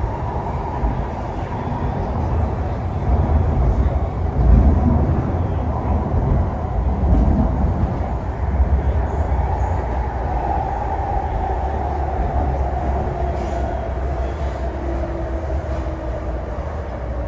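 East Rail Line R-Train electric multiple unit running, with a steady low rumble. From about ten seconds in, a motor whine falls steadily in pitch as the train slows.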